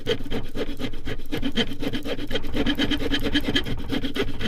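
The small saw blade of a Swiss Army Swiss Champ pocket knife cutting through old, dry hardwood under firm downward pressure, in quick, steady back-and-forth rasping strokes.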